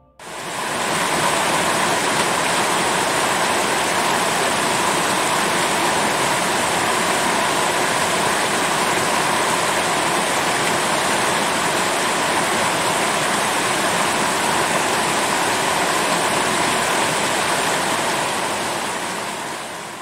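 River water rushing and cascading over boulders: a steady, full rush of falling water that swells up in the first second and fades away near the end.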